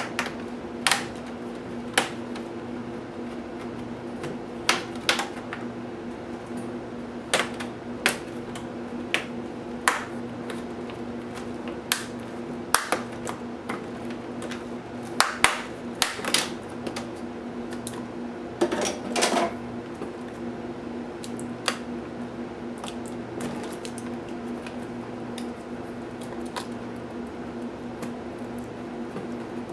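Plastic snap clips on an HP DV9000 laptop's display bezel and hinge cover clicking and snapping as they are pried loose by hand. The clicks come singly and at irregular intervals, with a short run of crackling about two-thirds of the way through. A steady low hum runs underneath.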